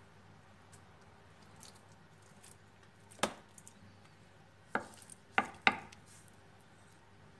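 Faint rustling of a wet cheesecloth as strained yogurt is emptied from it into a plastic storage container. It is broken by sharp knocks: one about three seconds in, then three more in quick succession around five seconds.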